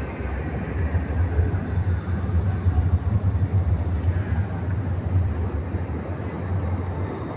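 Outdoor street noise: a loud, steady low rumble with a wash of hiss above it and no distinct events.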